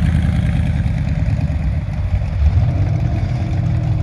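Engine of a classic car or truck rumbling at low speed as it rolls into a car show lot, a steady deep exhaust note.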